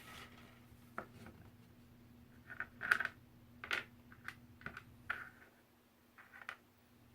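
Small plastic toy pieces and packaging being handled: a series of short rustles and clicks, the loudest about three seconds in.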